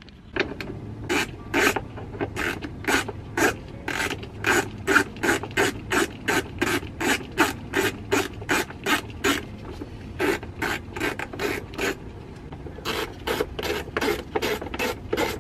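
Ratchet wrench clicking in quick, repeated strokes, about two or three a second, with brief pauses in the last third, working the lower-unit bolts of a Suzuki four-stroke outboard to remove the lower unit.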